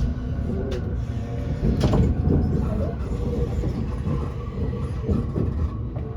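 E257 series electric express train running, heard from inside the passenger car: a steady low rumble with two sharp knocks about a second apart in the first two seconds.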